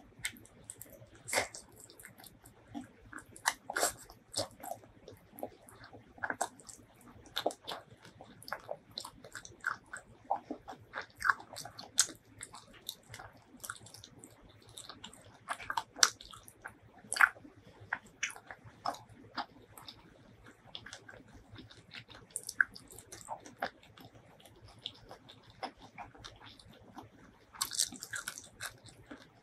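Close-miked chewing and biting of fried chicken wings: irregular wet mouth clicks and small crunches, several a second.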